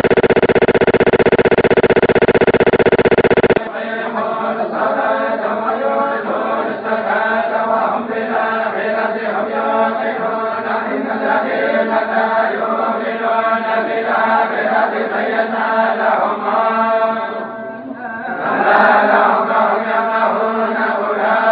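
Voices chanting together in unison: a tolba group reciting the Quran. It opens with a loud steady buzz that cuts off suddenly about three and a half seconds in, after which the chanting runs on without a break.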